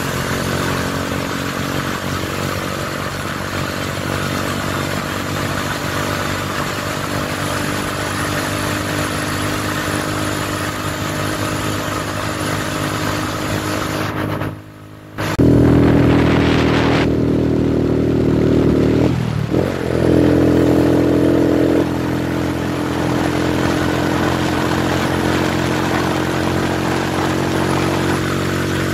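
Motorcycle engine running at a steady road speed, under wind and road noise. About halfway through, the sound cuts out for a moment and comes back louder, and a few seconds later the engine note dips briefly and picks up again.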